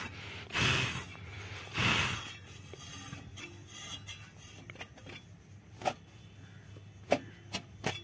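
Cloth wiping dust off a solar inverter's finned aluminium heat sink: two wiping strokes about a second apart, then a few short knocks near the end.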